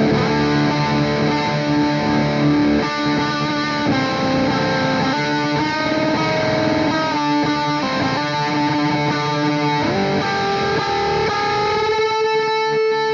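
Electric guitar in drop D playing a droning lead line: the open D string rings on under fretted notes, rubbing against them in a dissonance. Near the end a slow bend rises into a note that is then held.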